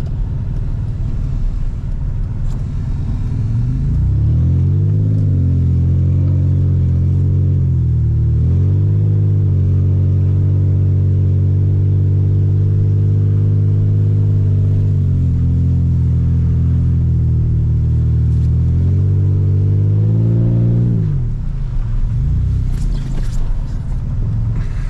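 Toyota Tacoma pickup's engine revving up about four seconds in and held at high revs for some fifteen seconds, with a brief dip near eight seconds, then dropping back near the end, as the truck is driven hard for a slide on a snow-covered street.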